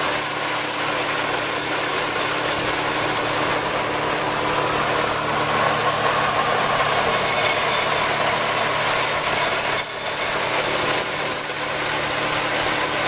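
Chopped corn silage blown up the fill pipe of a Case IH 600 forage blower and spraying into a silo: a steady rushing over the blower's even machine hum.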